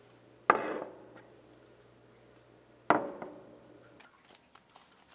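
Two clunks of ceramic dishes being set down on a table, about two and a half seconds apart, each ringing briefly. They are followed by faint small taps and rustles.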